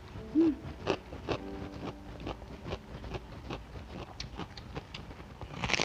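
Raw banana heart being chewed close to the microphone: a run of crisp, crunchy clicks from the mouth, loudest about half a second in.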